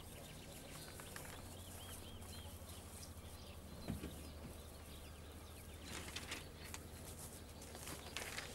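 Faint open-field ambience under a low steady hum, with a short run of small bird chirps a second or two in. A light knock comes about four seconds in and soft rustles follow around six seconds.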